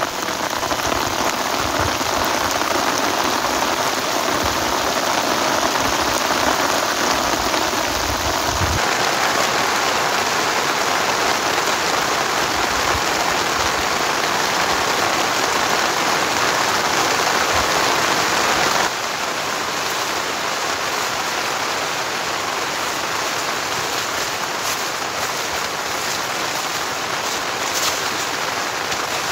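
Heavy rain pouring down, a steady dense hiss. The sound shifts abruptly twice, about nine seconds in and again about nineteen seconds in, and is a little quieter after the second change.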